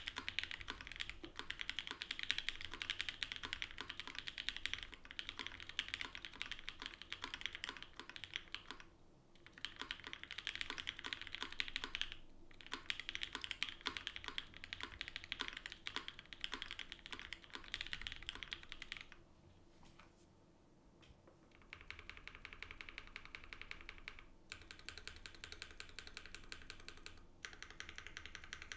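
Typing on an Eniigma Vertigo mechanical keyboard: gasket-mounted aluminum plate, lubed and filmed Frankenswitches (H1 bottom housings, Cherry top housings, Durock POM stems) and GMK keycaps. Rapid keystrokes with brief pauses about 9 and 12 seconds in and a longer pause around 20 seconds, after which the typing resumes at an even pace.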